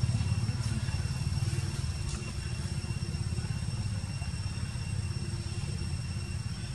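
A steady low engine-like rumble with a fast flutter, with faint steady high-pitched tones above it.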